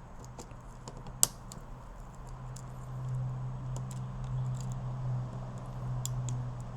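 Scattered light clicks and scratches of a plastic pry tool working a brittle, crumbling UV-damaged plastic door-handle insert out of its housing, bit by bit. A low steady hum comes up about three seconds in.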